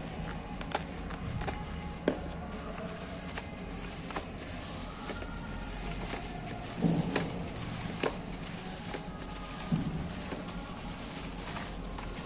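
Small parts and their packaging being handled while unboxing: scattered clicks, taps and rustles, with a few louder knocks about 7 and 10 seconds in, over a steady low hum.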